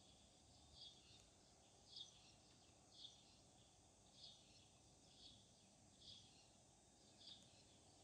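A bird chirping faintly, one short high chirp about every second in a steady rhythm, over a low background hiss of outdoor noise.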